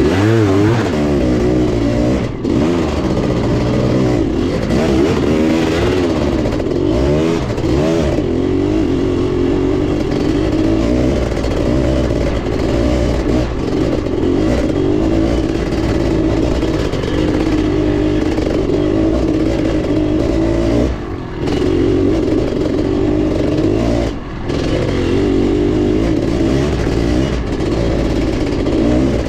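Honda CR500's 491 cc single-cylinder two-stroke engine revving up and down under load as the bike climbs a rocky trail, its pitch rising and falling constantly, with two brief throttle-offs about two-thirds of the way through.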